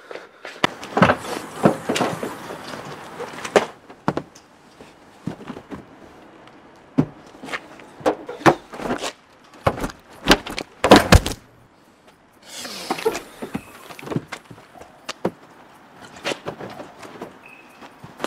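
Footsteps and a door, heard as a string of sharp knocks and clunks, with a tight cluster of loud knocks about ten to eleven seconds in and a brief rushing swish about twelve and a half seconds in.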